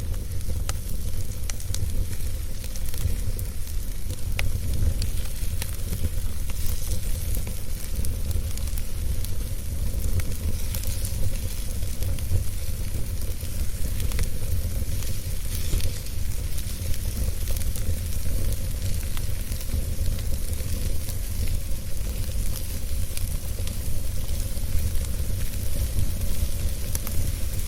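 Wood fire crackling in a fireplace: a steady hiss with many scattered sharp pops, over a constant low rumble.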